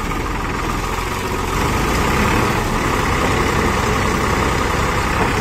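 Two diesel tractor engines running, an HMT towing a stuck Farmtrac 45. The engine sound grows louder about a second and a half in and then holds steady, as the pull comes under load.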